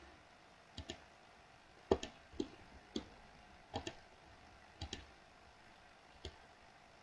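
Computer mouse clicking: about ten short sharp clicks at irregular intervals, several in quick pairs.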